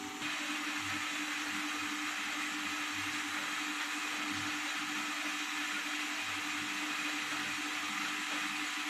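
Kitchen mixer grinder running steadily for about nine seconds, switching on just after the start and cutting off sharply at the end.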